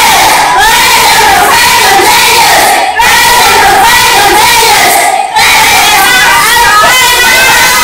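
A class of students' voices, many at once, raised and loud, with two brief breaks, about three and about five seconds in.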